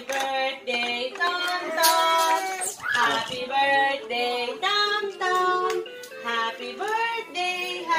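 A children's song, a sung melody with backing music, playing from an electronic baby activity walker's speaker.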